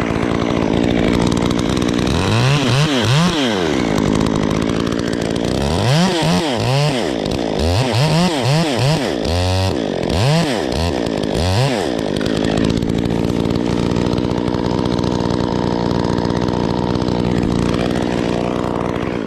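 Two-stroke chainsaw running at high revs while cutting wood chunks. Its engine pitch drops and climbs back again several times about two to twelve seconds in, then the saw cuts off suddenly at the very end.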